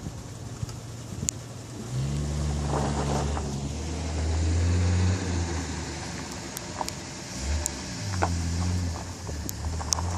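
Rolling thunder: a low rumble builds about two seconds in, is loudest around the middle, fades, then swells again near the end, over a steady hiss of rain with a few sharp ticks.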